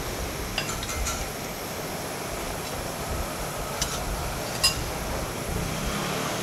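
Steady noise of a street-stall kitchen with a gas burner running under a pot of water, and a few light metallic clinks; the sharpest comes about four and a half seconds in.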